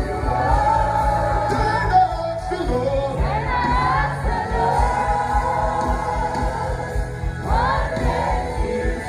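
Music: singing voices, with a choir-like sound, over a steady heavy bass beat.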